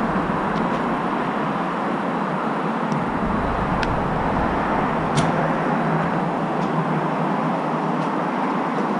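Steady vehicle traffic noise, with a few faint clicks.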